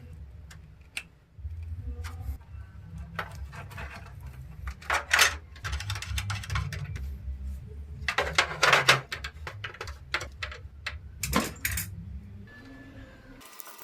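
Hands handling small hard PC parts: scattered clicks, clinks and rattles of metal and plastic, with two bursts of clattering about five seconds in and around eight to nine seconds in. A low steady hum runs under it and cuts off abruptly near the end.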